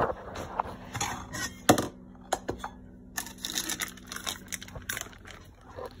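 Snack packaging and containers being handled: a run of sharp clicks and knocks with crinkling. The loudest is a single sharp knock a little under two seconds in.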